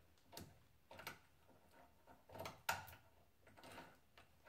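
Faint, scattered metal clicks and knocks of a homemade metal clamp being set on and shifted across the T-slot table of a small milling machine, about six in all, the sharpest a little past the middle.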